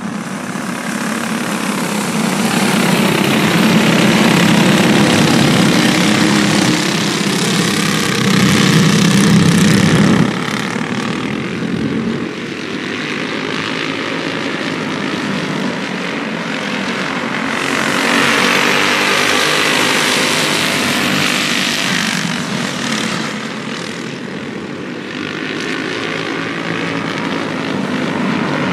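Several racing go-kart engines buzzing at high revs, their pitch rising and falling as the karts accelerate and ease off through the oval's turns. The sound drops suddenly about ten seconds in and swells again later as the pack comes past.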